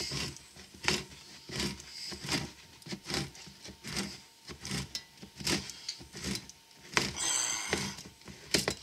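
Manual can opener cranked around the rim of a large No. 10 steel can, giving a rhythmic scrape-and-click about once every three quarters of a second as the handle turns. A brief higher-pitched scrape comes about seven seconds in.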